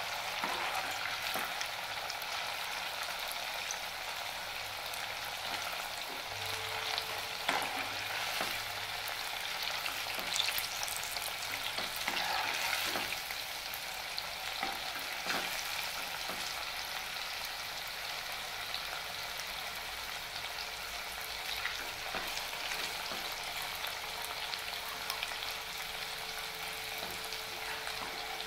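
Sweet pumpkin and wheat-flour fritters deep-frying in hot oil in a kadai, sizzling steadily, with a few light clicks now and then.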